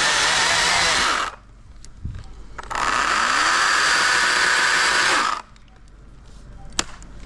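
Chainsaw run at full throttle in two bursts, each a couple of seconds long and cut off sharply, with a short pause between them. A single sharp click follows near the end.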